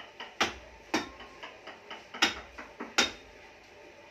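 Mallet driving a wood-carving chisel into a wooden block: four sharp knocks at uneven intervals, with lighter taps between them.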